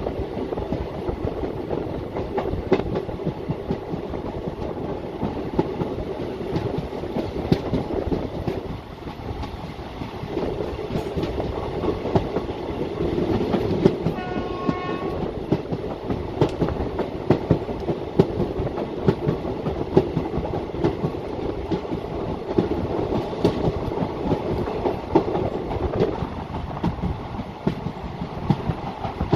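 Indian Railways passenger train running, its wheels clattering over rail joints with a steady rumble. A short horn blast sounds about halfway through.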